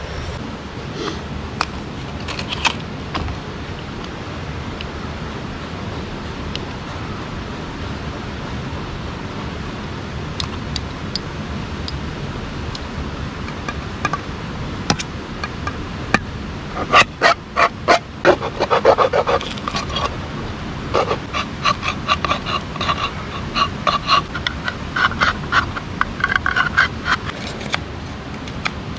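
Steady rush of a river running through a rocky gorge. From about halfway, a knife point stabs and levers around the lid of a steel food tin, making a run of sharp metallic clicks and scrapes that come quickly near the end.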